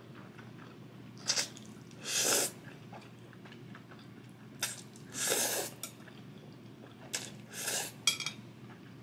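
A person slurping spicy instant fire noodles: about five short slurps, a second or two apart, with soft chewing and a couple of small clicks in between.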